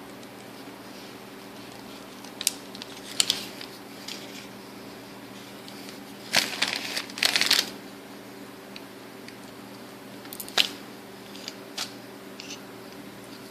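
Small parts of a Shimano Chronarch 101A baitcasting reel being handled during disassembly: a few sharp clicks and a burst of scraping and rattling about halfway through, over a steady low hum.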